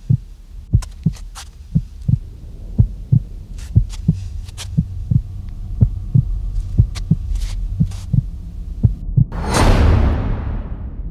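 Heartbeat sound effect: paired low thumps about once a second, steady, over a low drone. About nine and a half seconds in, a loud rushing burst swells and dies away, leaving the drone.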